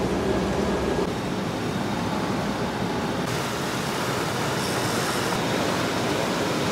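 Sportfishing boat running under way: a steady engine drone with the rush of water and wake, its hum tones fading after about a second, leaving an even rushing noise.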